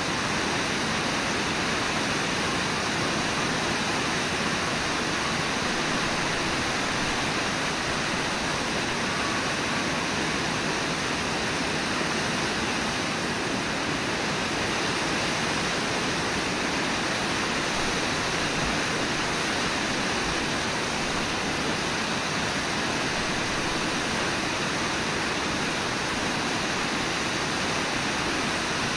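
Steady rush of the fast-flowing Brooks River, an even wash of white water with no breaks.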